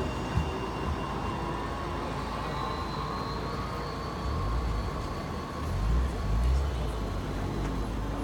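Tram running, with a faint electric motor whine over a steady rolling noise. A low rumble swells up about halfway through and again near the end.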